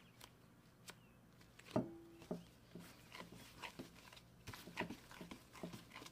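A soft ball of bread dough is set down in a glass bowl with one dull thud about two seconds in, and the bowl rings briefly. Light irregular knocks and rustles follow as a cloth is laid over the bowl.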